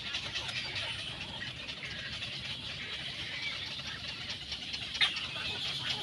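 Outdoor background ambience: a steady high chirring over a low hum, with faint scattered chirps and one sharp click about five seconds in.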